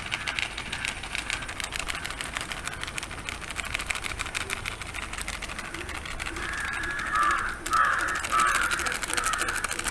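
A crow cawing three or four times, short harsh calls starting about seven seconds in, over a dense, fast, steady crackle.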